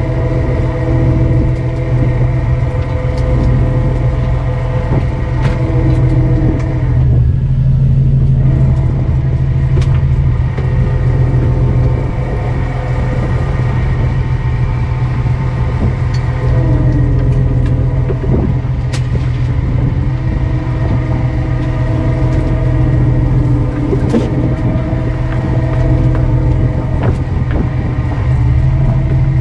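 A fishing boat's engine running steadily, a loud low hum with a whining tone above it that fades and shifts in pitch a few times. Scattered clicks and knocks from work on the deck.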